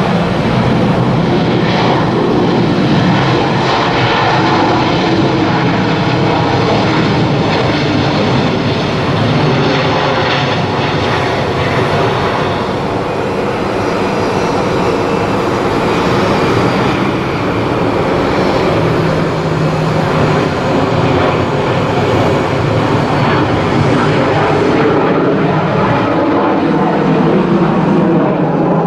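Airliner jet engines running loud and steady, easing slightly about halfway.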